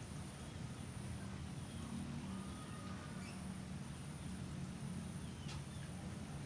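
Pondside ambience: a steady low rumble with a thin steady high whine over it, and a few faint, short bird chirps.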